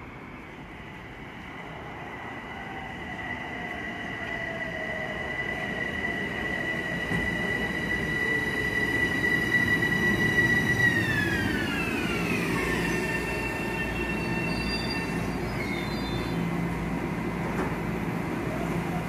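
Metro-North electric multiple-unit commuter train drawing near, growing louder over the first ten seconds. Its electric whine holds a steady high pitch, then drops sharply about eleven seconds in and settles lower, over the noise of wheels on rail.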